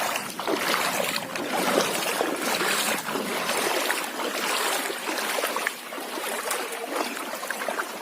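Floodwater rushing: a steady noisy rush with many small splashes.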